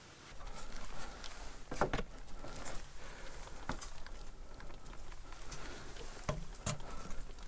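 Knocks and scrapes of hands and boots on a wooden ladder and rock while climbing, heard close up: a handful of sharp knocks scattered through it over a steady low rumble.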